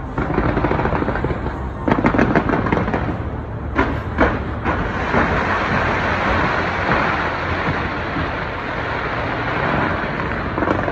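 Aerial fireworks going off: a rapid run of bangs about two seconds in, two sharp reports near four seconds, then a dense, continuous crackle.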